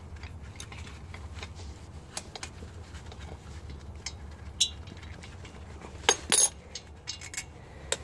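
A 12mm spanner clicking and clinking on the lower caliper bolt of a VF Commodore front brake as the bolt is undone, with a sharper ringing clink about four and a half seconds in and two louder clinks around six seconds.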